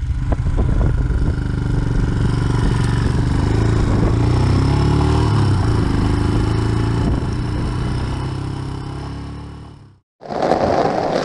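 Royal Enfield Himalayan single-cylinder motorcycle engine running at road speed under a steady rush of wind, the engine note rising and falling slightly midway. It fades out, and near the end heavy rain patters on tent fabric.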